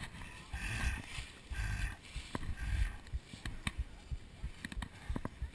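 A runner's footsteps on dry fallen leaves, with repeated thumps and rustles as the body-worn GoPro camera jostles with each stride.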